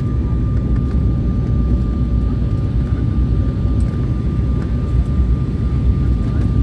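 Steady cabin noise inside an Embraer 175 airliner on approach: a dense low rumble of its turbofan engines and the airflow, with a thin steady high tone over it.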